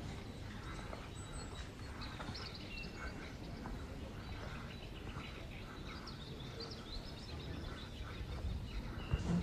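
Outdoor ambience: a steady low rumble with small birds chirping on and off, and a single thump near the end.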